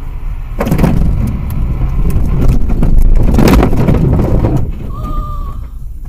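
Road-vehicle noise picked up by a dashcam: a loud rumble with sharp rattling clicks for about four seconds, then a short beep.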